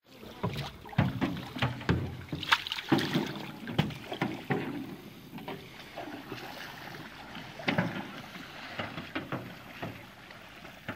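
Canoes being paddled on a river: irregular paddle splashes and knocks against the canoe hulls, busiest in the first few seconds, then a quieter wash of water.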